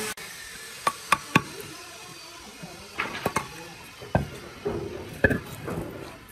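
Irregular sharp wooden knocks and clacks as chisels and a hardwood block are handled and set down on a concrete floor. Three quick knocks come about a second in, then scattered clacks.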